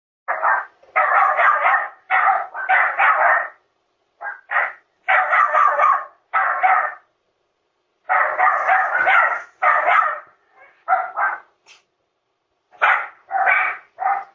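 Dog barking over and over, many barks in quick runs with short pauses between them, heard through a video doorbell's microphone.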